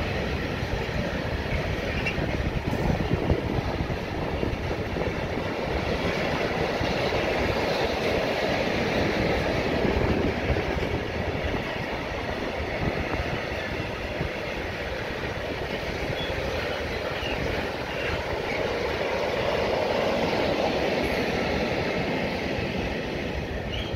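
Freight train of rail tank wagons rolling past at speed: a steady, continuous noise of wheels running on the rails, with no break or horn.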